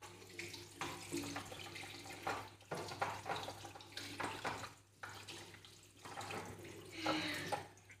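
Tap water running and splashing onto a plastic washing-machine detergent drawer as fingers rinse out its compartments in a sink. The splashing changes and drops out briefly a few times as the drawer is moved under the stream.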